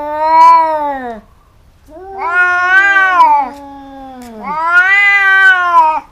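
Domestic cats yowling at each other in a fighting standoff: long drawn-out calls that waver up and down in pitch, three in a row, the first already under way and ending about a second in.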